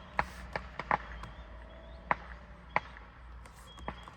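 Sharp clicks of a 2019 Chevy Silverado's steering-wheel control buttons being pressed, about seven at uneven intervals, to step through the instrument-cluster menu and reset the oil-life monitor. A low steady hum runs beneath.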